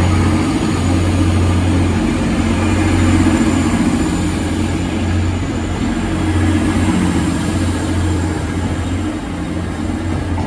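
TransPennine Express class 185 diesel multiple unit departing, its diesel engines running under power with a steady low drone as the carriages pass.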